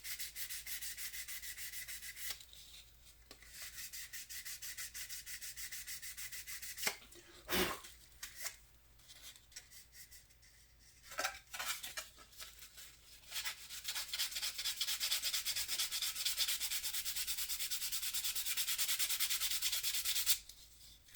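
Sandpaper worked by hand in quick back-and-forth strokes over dried filler putty on a plastic scale-model car body, sanding dry to level out filled sink marks. Short runs of strokes with pauses and a couple of knocks in the middle, then a long steady run of sanding that stops abruptly near the end.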